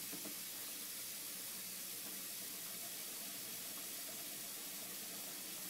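Kitchen sink faucet running: a steady, even rush of water.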